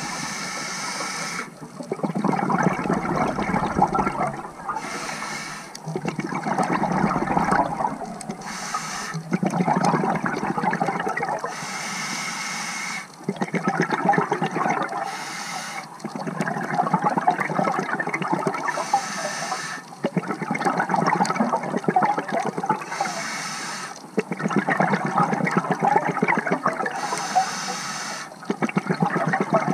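Scuba diver breathing through a regulator underwater. Each inhalation is a short hiss, followed by a longer bubbling rush of exhaled air. The breaths come in a steady cycle of about one every four seconds, eight in all.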